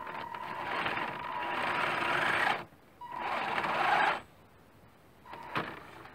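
Tamiya CC-01 RC car's electric motor and gearbox whirring in two bursts of throttle, each cutting off sharply. Then a single knock a little before the end.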